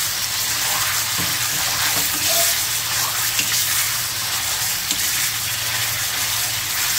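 Marinated pounded meat frying in hot oil in a kadai over a high flame, with a steady sizzle, stirred with a steel spoon that scrapes the pan a few times.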